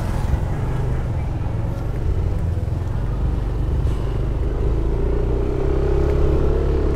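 Yamaha Aerox 155 scooter on the move: a steady low rumble of wind and engine. A hum from the single-cylinder engine grows stronger and rises slightly in pitch from about five seconds in.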